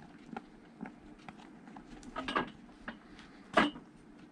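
Hand-stitching a leather boot welt: light handling ticks, then a short scratchy sound about two seconds in and a sharper, louder one about three and a half seconds in, as the thread is pulled tight through the leather.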